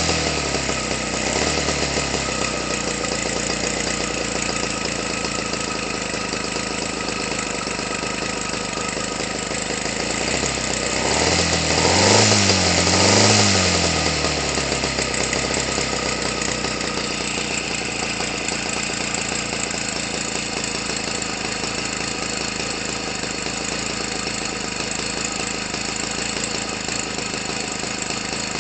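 Homelite 25cc two-stroke engine with a Zama carburettor, turning an 18x6 propeller, idling steadily. About twelve seconds in, the throttle is blipped twice in quick succession, the pitch rising and falling each time, before it settles back to a steady idle.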